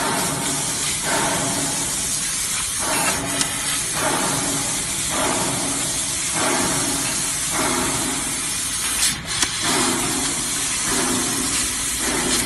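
CNC fiber laser cutting machine cutting sheet metal: a steady loud hiss of assist gas at the cutting head, with a lower rushing sound that switches on and off every second or two as the head cuts one letter stroke after another.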